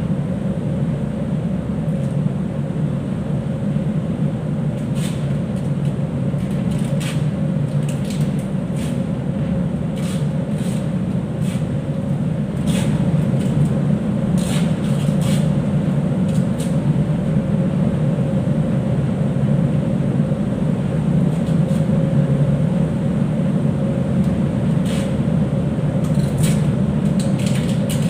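Steady low drone of the ship's machinery and ventilation, with a faint steady tone above it. Over it come short scratchy rips of duct tape being pulled off the roll and wound tight round the strand ends of a mooring rope, in clusters from about five to seventeen seconds in and again near the end.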